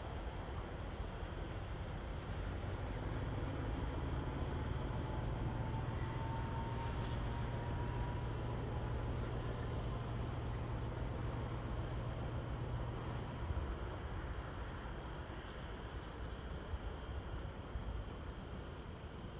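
Diesel-hydraulic Class 295 shunting locomotive moving off with a string of tank wagons, its engine giving a steady low drone that fades about two-thirds of the way through as the train draws away. A faint thin squeal is heard in the middle.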